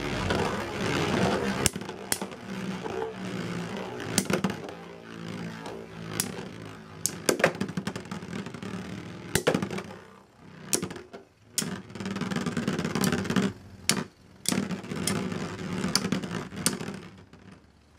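Two metal Beyblades, Dark Knight Dragooon LW160BSF and Lightning L-Drago 100HF, spinning in a clear plastic stadium: their tips whir as they travel across the plastic floor, with repeated sharp clicks as the metal wheels strike each other. The whirring fades briefly several times in the second half.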